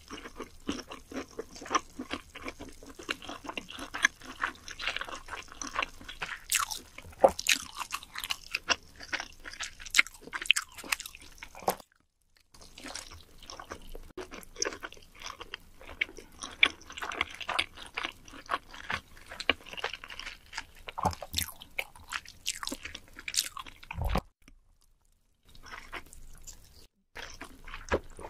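A person chewing sushi with the mouth closed: a dense run of quick mouth clicks, pausing briefly about twelve seconds in and again near the end, with one low thump just before the second pause.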